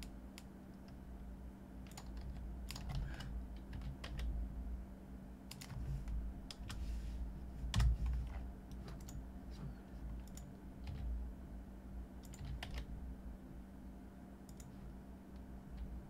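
Computer keyboard keys clicking in scattered, irregular taps and small clusters, with one louder knock about eight seconds in, over a steady low hum.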